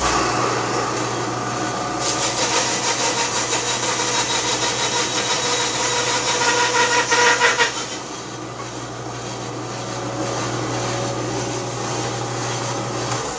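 Busy Bee B324 benchtop bandsaw switched on and running with a steady hum, noisy from bearings that need replacing. From about two seconds in, the blade cuts through a piece of scrap wood for some five seconds, an easy cut. It then runs free until it is switched off and winds down near the end.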